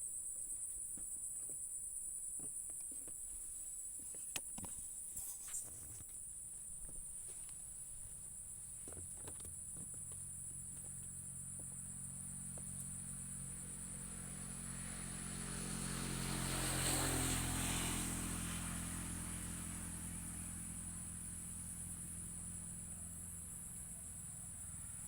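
A steady high-pitched insect chorus of crickets or cicadas. A motor vehicle passes, its engine swelling to loudest about two-thirds of the way through and then fading. A few faint clicks come early on.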